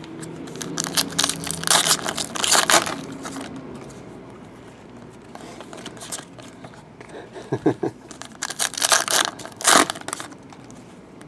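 Foil wrappers of 2014 Prizm Soccer trading-card packs crinkling and tearing as the packs are ripped open. There are two spells of crackle, one about one to three seconds in and another near the end.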